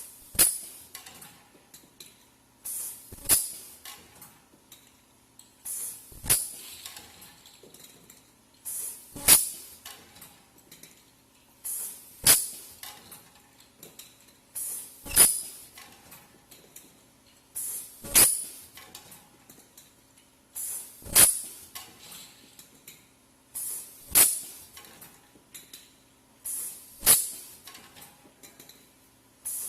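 Automatic rotary-disk ultrasonic welding machine cycling steadily about every three seconds. Each cycle is a short, high hissing burst with a whistle in it, then a sharp clack, over a faint steady hum.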